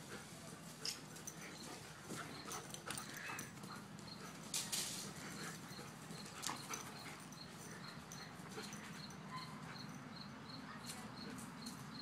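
Faint scuffs, patters and rustles of a large dog running across grass and digging in mulch. A short burst of rustling comes a little before halfway, and from about halfway a soft high chirp repeats about twice a second.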